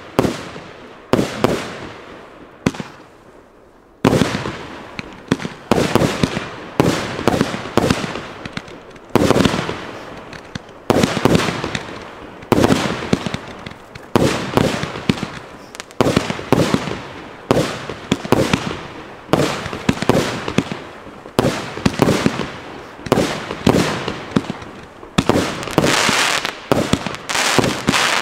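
Aerial fireworks going off: a steady run of sharp bangs about one or two a second. There is a short lull a few seconds in, and a denser, louder run near the end.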